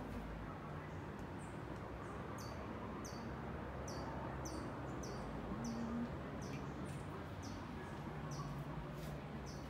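A bird repeating a short, high chirp at an even pace, about one and a half times a second, over a steady low hum.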